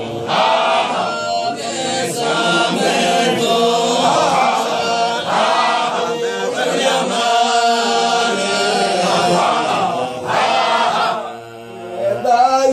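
Group of men chanting together in a Sufi dhikr, their voices continuous and overlapping. The chant dips briefly near the end and then comes back in full.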